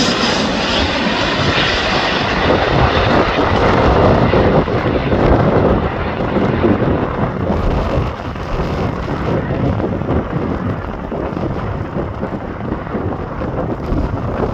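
Boeing 737 airliner's jet engines heard on landing, a loud roar that peaks about four to five seconds in and then fades, with gusty wind buffeting the microphone.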